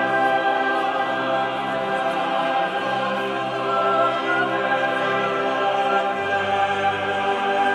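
Choral music with voices holding long sustained chords. The bass note steps down to a lower pitch about six seconds in.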